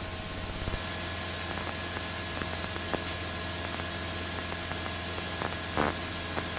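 Steady drone of a single-engine light aircraft's piston engine and propeller in cruise, heard through the cockpit intercom, with thin steady high-pitched whines over it and a few faint clicks.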